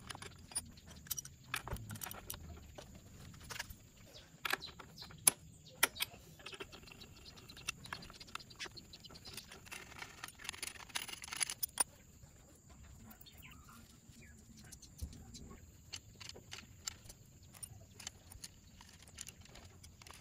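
Metal hand tools clicking and clinking against a Lambretta scooter's clutch assembly as it is worked on by hand. Sharp, irregular clicks and taps, with a short scraping stretch about ten to twelve seconds in.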